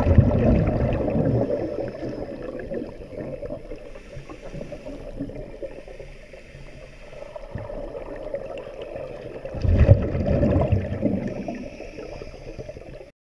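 Scuba regulator exhaust bubbles gurgling and rumbling underwater: a strong surge of exhaled bubbles at the start and another about ten seconds in, with quieter bubbling between. The sound cuts off abruptly near the end.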